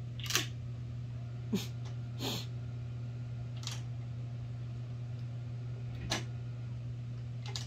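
A dog nudging a plastic Puppod treat-dispensing toy: about six short, sharp clicks and knocks spread over several seconds, over a steady low hum.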